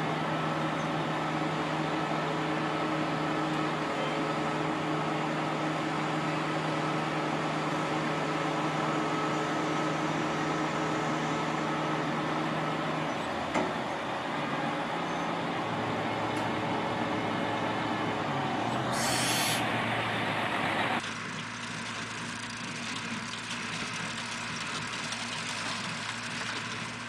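Diesel semi truck running steadily while it unloads hay bales with its tilting bed, the engine note dropping lower about halfway. About two-thirds through comes a short, sharp air-brake hiss, and then the sound cuts to a quieter outdoor scene.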